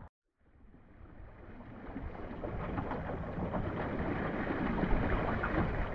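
Water lapping and splashing against the hull of a small wooden sailing dinghy under way, a steady wash with many small irregular splashes and wind rumble underneath. The sound cuts out for a moment at the very start and fades back in over the next couple of seconds.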